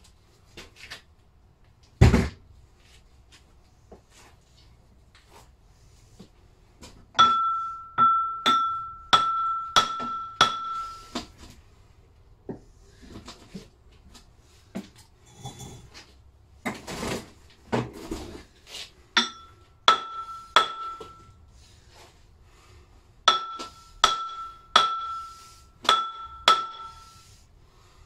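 Lump hammer blows on the Lister D engine's steel crankshaft, each strike ringing with a clear metallic tone, as the stuck crankshaft is driven out of the crankcase. The blows come in three runs of several strikes, about three every two seconds, starting about seven, nineteen and twenty-three seconds in, after a single heavy knock about two seconds in.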